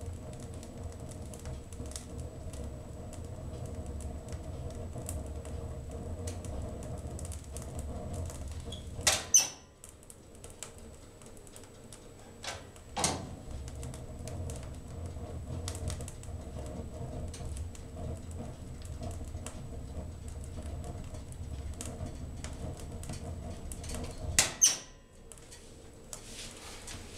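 Wood fire burning in a wood stove: a steady low roar full of small crackles and ticks. Loud pops stand out: a pair about nine seconds in, one more a few seconds later, and another pair near the end.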